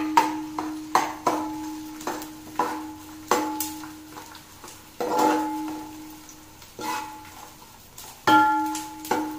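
A metal spoon stirring edible gum frying in ghee in an aluminium pot, knocking against the pot about a dozen times at irregular intervals. Each knock leaves the pot ringing briefly.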